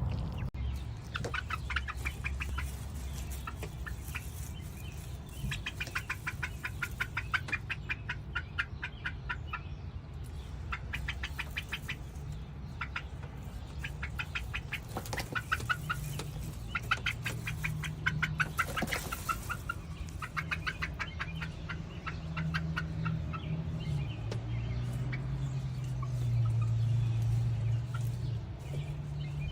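Young Buff Orpington chickens giving the startled, nervous, uncertain call: bursts of rapid trilling, a second or two each, repeated many times over a low background hum. It is a 'whoa, what was that' sound, distinct from a distress call or an alarm call.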